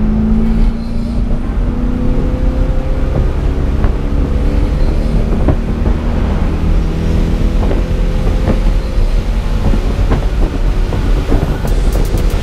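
C5 Corvette's LS1 V8 with a Borla exhaust running under way, heard from inside the open-top cabin, its note climbing slowly twice, over a steady low rumble of road and wind noise.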